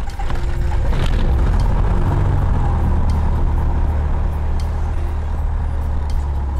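Piper Cherokee Warrior's four-cylinder Lycoming O-320 engine and propeller catching just after a primed start, building up in about the first second and then settling into a steady idle.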